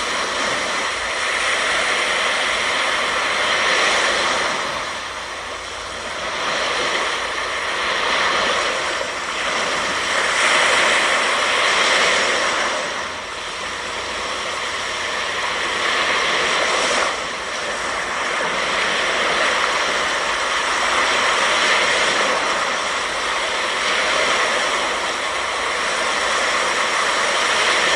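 Ocean surf breaking and washing up the beach, a steady rush that swells and eases every few seconds.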